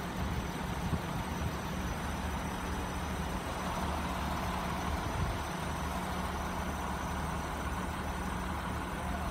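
Steady low engine hum of cars idling, with no sudden events.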